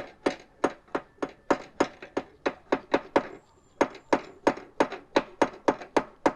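Hammer blows on a ratchet wrench used as a drift against the old steering-head bearing race of a Yamaha R15 v3, knocking it out of the frame: sharp metal strikes, about three a second, with a short pause about three seconds in.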